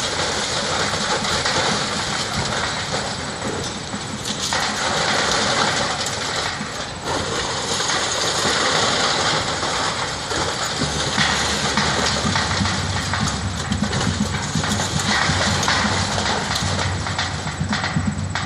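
Demolition crane's engine running, getting deeper and louder from about eleven seconds in, over a dense crackling clatter of brick rubble sliding and falling from the broken wall.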